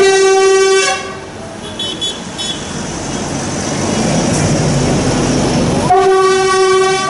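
Tractor horn tooting twice, each a steady single-pitched note: a short toot of just under a second at the start, then a longer one about six seconds in. Diesel tractor engines run between the toots, swelling as the next tractor draws near.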